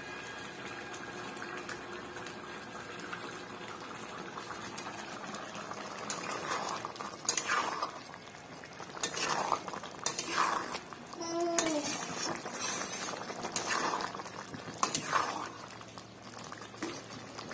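Jackfruit curry bubbling in a pan, then stirred with a metal spoon: a series of scraping strokes against the pan, about one a second, starting about six seconds in.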